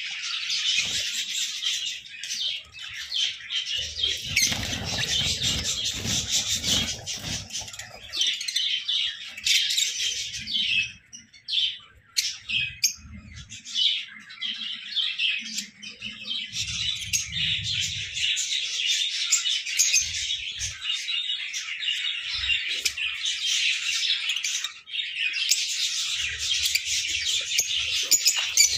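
A flock of lovebirds chattering: a dense, continuous stream of rapid high chirps and squawks that thins out briefly about eleven seconds in, with some low rumbles underneath.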